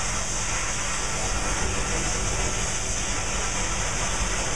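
Arcair cutting torch running steadily against a railroad tie: a continuous loud rushing hiss with no breaks.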